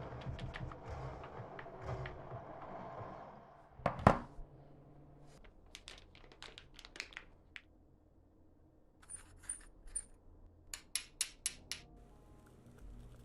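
Small hard objects clicking and clinking as they are handled, with one loud knock about four seconds in and several quick runs of light clicks later.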